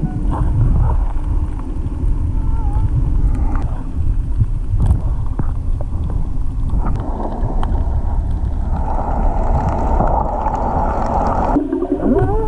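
Underwater surge of moving seawater as a heavy, steady low rumble, with a hiss of bubbles from about nine seconds in to near the end.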